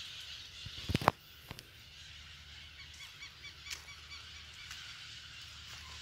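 Faint outdoor birdsong, small repeated chirps, with two sharp cracks about a second in.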